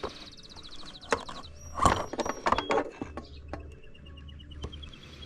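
Clicks and clanks of tools and metal parts being handled while working on a motocross bike, loudest in a cluster of knocks about two seconds in.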